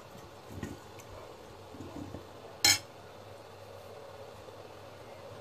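Kitchenware handled at a stovetop steamer: a couple of soft knocks, then one sharp metallic clink near the middle, over a faint steady hum.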